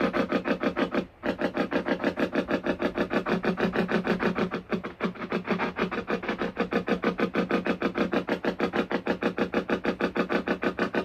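Ghost-hunting spirit box sweeping through radio stations: a fast, even chop of static bursts, about eight a second, with a brief break about a second in.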